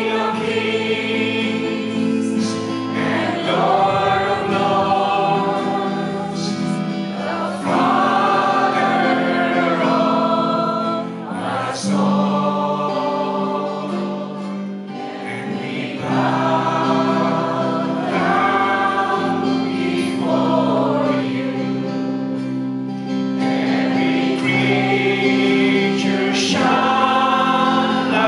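Group singing of a Christian praise and worship song, with acoustic guitars and the voices of a worship band and congregation together, in phrases of a few seconds each.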